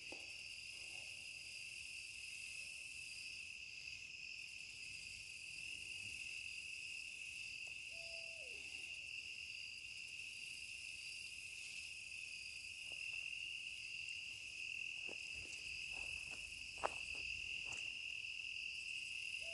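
Steady night chorus of crickets and other insects, with an owl calling twice, each call a held note that slides down, about eight seconds in and again at the end. A single faint click sounds about three-quarters of the way through.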